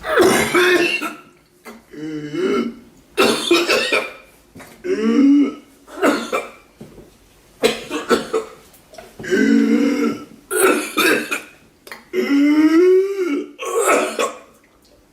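A string of about a dozen separate human coughs and throat-clearing hacks, one roughly every second, many of them voiced with an audible pitch.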